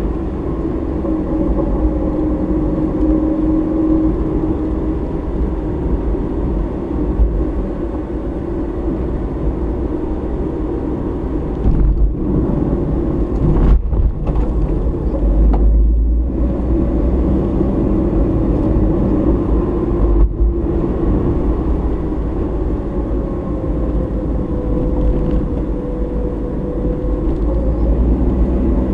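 Car driving along a road, heard from inside the vehicle: a steady low rumble of engine and tyre noise, the engine note slowly rising and falling with speed.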